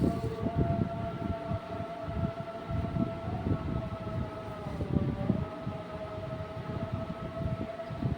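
A sustained, siren-like tone holding one pitch, wavering slightly and dipping briefly about five seconds in. Irregular low thumps and rustling run underneath it.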